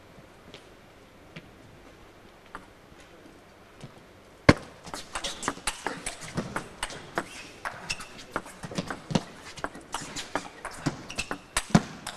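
Table tennis rally: the ball clicking sharply off rackets and table in a quick exchange, an attacker's hard hits against a defender returning from far back from the table. A few faint ticks come first, then the rally starts about four and a half seconds in with its loudest hit and runs on at several shots a second.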